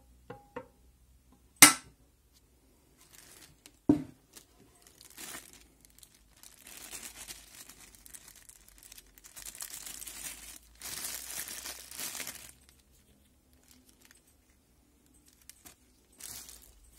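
A double-sided grill pan being handled: a sharp click, then a heavier knock about four seconds in. After that, a clear plastic zip bag crinkles and rustles for several seconds, with a short rustle again near the end.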